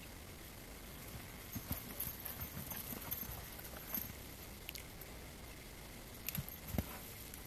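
Horse's hooves thudding on soft arena dirt in irregular bursts as it moves and turns, starting about a second and a half in and picking up again with a few louder thuds near the end.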